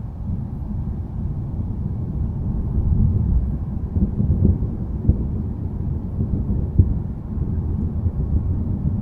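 Low, rolling thunder rumble from a thunderstorm. It swells about three to five seconds in, with a few short louder peaks.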